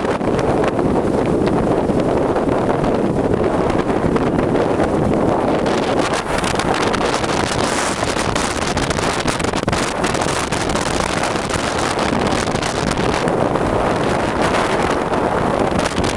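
Strong wind buffeting the microphone: a loud, steady rush of noise that swells and eases.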